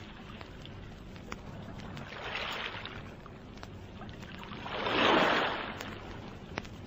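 Sea waves washing onto a beach as a background sound effect, in slow surges: a small one about two seconds in and a bigger, louder one about five seconds in.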